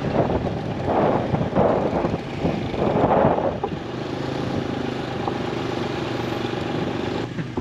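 Low-speed street traffic with motorcycle and car engines running. The first few seconds are uneven and noisy; from about halfway a steady engine hum takes over.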